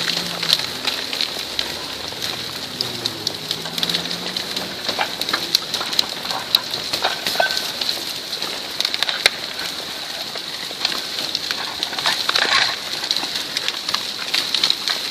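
Continuous crackling and clatter of earth and rock sliding in a landslide of a mine spoil heap: many small cracks and knocks over a steady high hiss.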